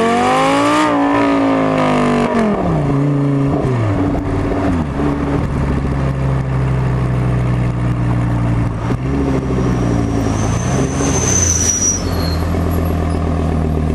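Audi R8 V10 FSI's 5.2-litre V10 heard at the tailpipe of an aftermarket MGmotorsport exhaust with flaps while driving. The revs climb to a peak about a second in, then fall away as it eases off. After that it runs at low, steady revs with a short rise and fall later on.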